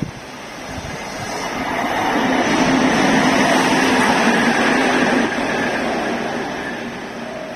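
Direct Rail Services locomotive passing close by at speed, its sound building to a peak with a steady low hum and a higher whine over the rush of wheels on rail, then dropping away about five seconds in as it moves off.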